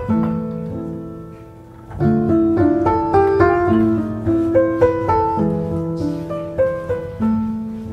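Background piano music. A phrase fades away, then a new run of notes begins about two seconds in and carries on, fading again near the end.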